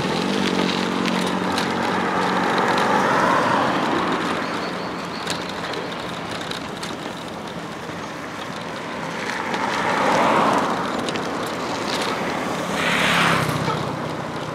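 Motorcycle engine running while riding along a road, over a steady rush of wind and road noise. The engine note falls as the bike slows at the start, fades under the wind and comes back near the end.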